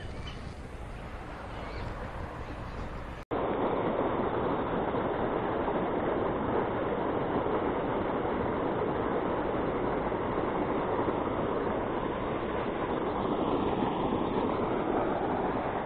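Steady rushing of water pouring from a concrete outlet into a pond, cutting in abruptly about three seconds in after quieter outdoor background.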